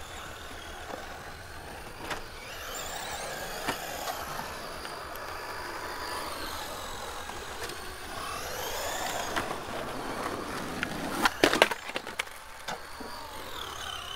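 Electric RC car's motor whining, sweeping up and down in pitch as the car speeds up and slows across concrete. A few sharp knocks come close together about 11 seconds in.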